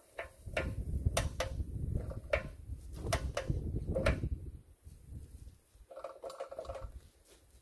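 Greenlee 1818 mechanical pipe bender's ratchet handle being worked, with a string of sharp metallic clicks and clanks over a low rumble for the first four seconds or so, then quieter.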